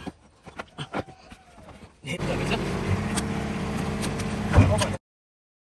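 Faint clicks and knocks of hand work on tractor parts. From about two seconds in, a small tractor engine runs steadily, with one loud thump near the end, and it cuts off suddenly.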